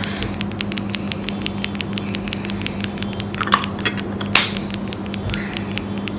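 Rapid, even clicking of a small tactile push-button switch on a remote-control circuit board, about six clicks a second, as it is worked repeatedly after being sprayed with cleaner. Two brief handling rustles come about halfway through, over a steady low hum.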